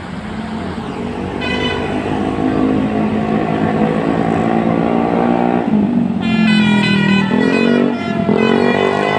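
Tour bus sounding a Basuri telolet melody horn: one long held note, then a run of shorter notes that slide up and down about two thirds of the way in, growing louder over the bus engine's low rumble.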